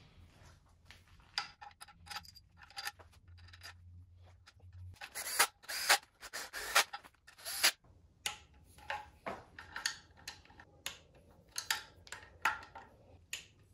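Hand ratchet and torque wrench clicking in short runs as the small front bolts of a BMW N55 cylinder head are run down and tightened to 22 Nm. The clicks are quiet at first, come thick and loud about five to eight seconds in, then go on at about two a second.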